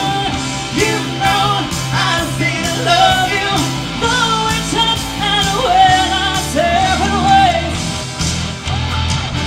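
A woman singing lead vocals into a microphone over a live rock band, with electric guitar and bass guitar, playing a rock song.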